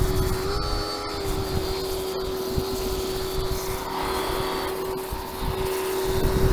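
Electric pressure washer running with a steady motor whine, its water jet hissing as it blasts grime off a gearbox casing. The motor note lifts slightly about half a second in, then holds steady.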